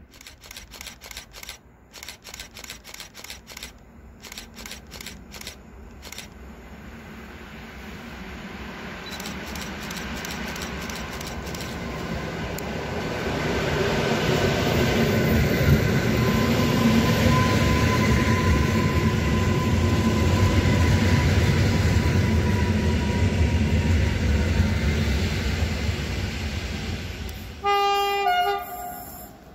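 EN57AKŚ electric multiple unit arriving at a platform: a rumble that swells as it draws near, with a steady whine that sinks slightly in pitch as it slows. Near the end, an electric locomotive sounds a short two-tone horn blast, the Rp1 warning signal.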